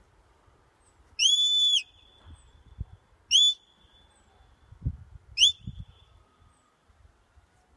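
Shepherd whistling commands to a working sheepdog: three sharp, high-pitched whistle blasts, the first held about half a second, the next two shorter. In this handler's commands a whistle tells the dog to stop.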